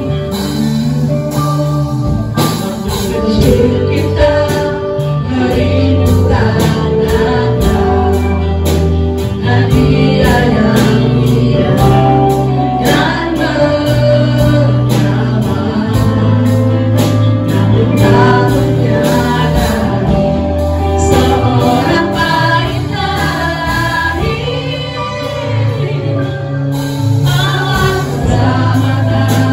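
A group of women singing an Indonesian Christmas worship song together into microphones, over an amplified live band with electric guitar and a steady beat.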